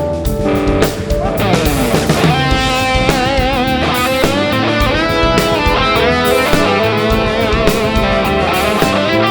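Live band playing an instrumental passage with guitar to the fore and a steady beat. About a second in, a lead line slides down in pitch, then plays held notes with a wavering vibrato.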